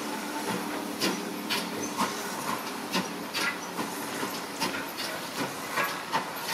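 Ex-GWR 2-6-2 tank locomotive No. 5542, a two-cylinder steam engine, pulling away slowly with its train, its exhaust beats coming evenly about twice a second.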